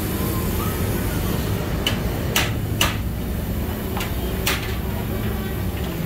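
Five sharp knocks spread over a couple of seconds from about two seconds in, over a steady low hum.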